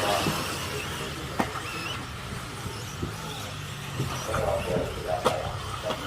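1/10 scale electric off-road RC buggies racing on a dirt track: a thin motor whine that rises and falls, with two sharp knocks, one about a second and a half in and one near the end.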